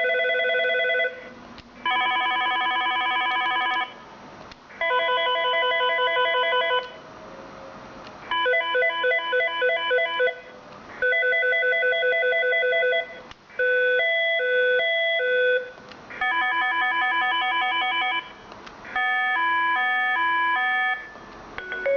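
Cisco 7970 IP phone playing a series of recorded ringtones through its speaker, eMetroTel phone rings, as the ringtone list is stepped through. About eight short ring patterns of about two seconds each follow one another with brief pauses; some are a fast trill, others alternate between two or three tones.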